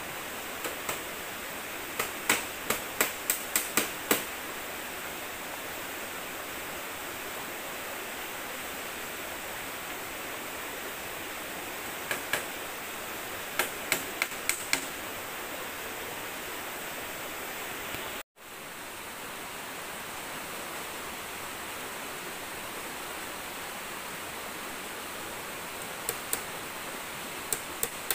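Steady rush of a river, with three short runs of sharp clicks and taps, several a second, from bamboo poles and split-bamboo strips being handled and knocked together. The sound drops out for an instant about two-thirds of the way through.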